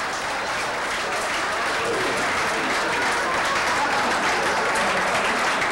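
Audience applauding, steadily and growing a little louder.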